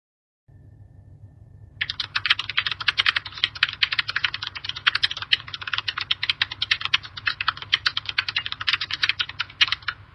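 Fast typing on a computer keyboard: a dense, quick run of key clicks that starts about two seconds in and stops just before the end, over a faint low hum.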